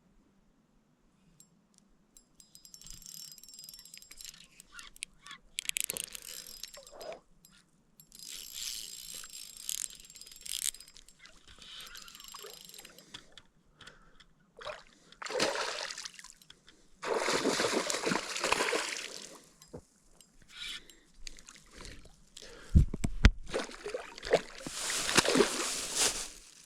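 Water splashing and sloshing in irregular bursts, with a deep thump about three-quarters of the way through.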